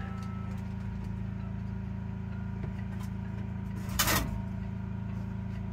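Stove-pipe sections being pushed together on top of a small wood stove: one short, loud scrape about four seconds in, over a steady low hum.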